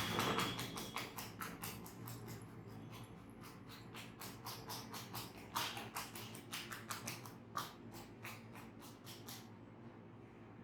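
Rapid, even tapping, several sharp taps a second, which stops about nine seconds in.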